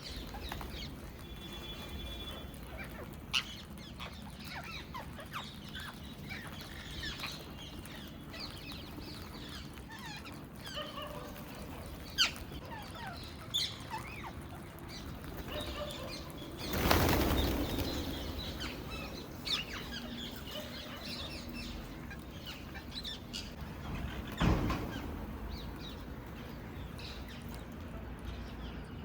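Indian ringneck parrots (rose-ringed parakeets) giving short chirps and squawks throughout, with scattered sharp clicks. Just past the middle a burst of wing flapping lasting about a second and a half is the loudest sound, and a shorter flap follows later.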